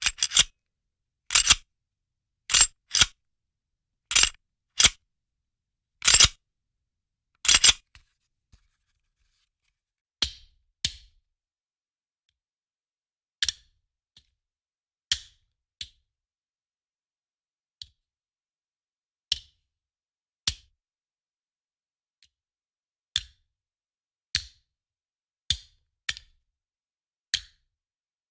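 Handgun sound effects: a run of short, sharp cracks, several in quick pairs during the first eight seconds, then from about ten seconds in quieter, shorter cracks spaced one to two seconds apart.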